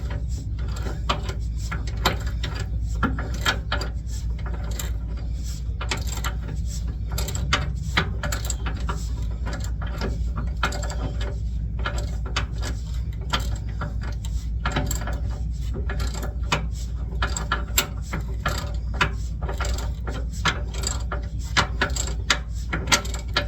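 Hand socket ratchet clicking in short irregular runs as it slowly backs out a rusty suspension bolt, over a steady low hum.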